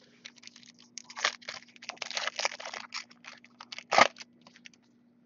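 Foil wrapper of a Topps Chrome trading-card pack crinkling and tearing as it is ripped open: a quick run of crackles with one sharp, loudest tear about four seconds in.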